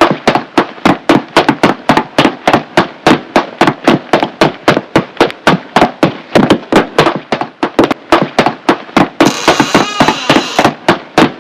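A long run of loud, sharp bangs in quick succession, about four a second, with a hissing noise over them for a second or so near the end.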